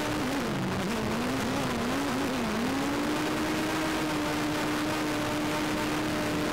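A motor droning at a steady pitch. For the first couple of seconds the pitch dips and wavers up and down, then it settles and holds level.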